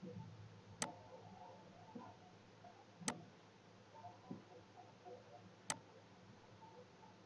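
Three sharp computer mouse clicks, a couple of seconds apart, with a few fainter ticks between them over a faint hiss.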